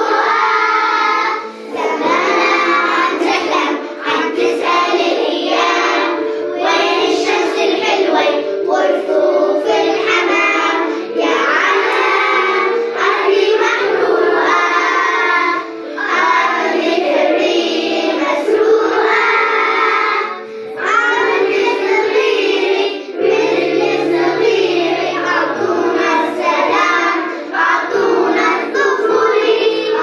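A group of young children singing a song together in chorus over an instrumental backing with sustained notes.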